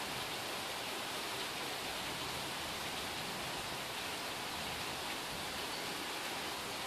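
Rain falling steadily at night, an even hiss with no thunder.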